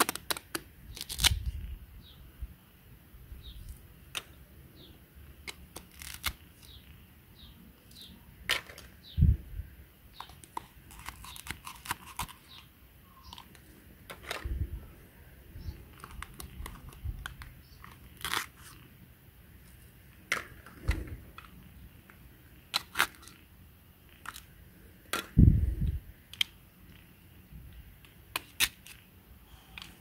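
Plastic toy vegetables, a corn cob and a carrot, being cut apart with a plastic toy knife: the halves tear apart at their velcro joins amid scattered plastic clicks and taps. A few dull thumps stand out, about nine seconds in and again near the end.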